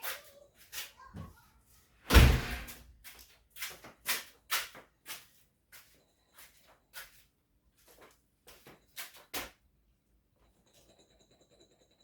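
A loud thump about two seconds in, followed by a run of short, sharp knocks and clicks that stop near the end.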